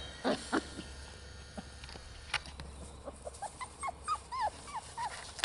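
Six-week-old Pumi puppies whimpering: a string of short, high, squeaky whines that come thicker in the second half, with a few knocks near the start.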